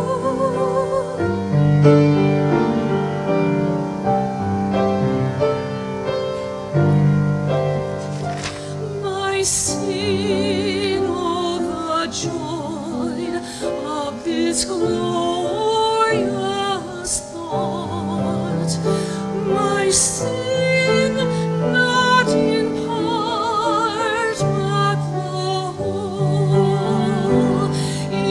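Grand piano accompaniment with a woman singing a sacred solo in a vibrato-rich voice; the singing stands out more from about nine seconds in.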